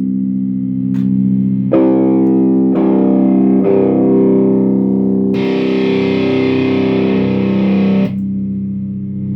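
Electric guitar played through a distortion pedal into a Monoprice tube amp fitted with new Celestion speakers, turned up to about noon. Sustained distorted chords are struck three times. A brighter chord struck about five seconds in is held for nearly three seconds, then cut off, leaving a lower ringing tone.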